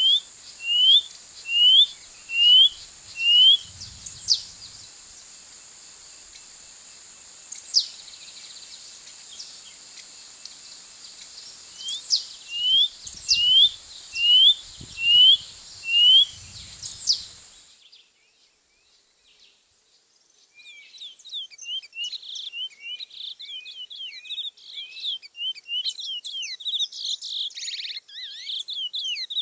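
Birds calling: one bird gives runs of five or six short rising chirps, mixed with occasional sharp falling notes, over a steady high insect hiss. The sound drops out for a few seconds past the middle, then comes back as a dense chorus of many birds chirping.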